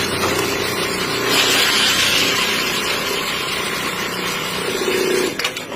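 Factory machinery running with a steady loud hiss and a hum that comes and goes, cutting off near the end.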